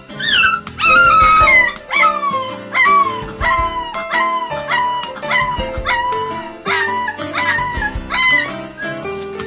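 A puppy howling and crying: a long series of short cries that fall in pitch, about two a second, the first few longer and higher, over background music.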